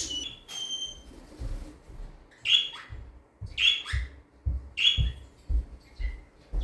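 Pet parrot calling: a short clear whistled note, then three loud short calls about a second apart, each falling in pitch, over dull knocks of handling.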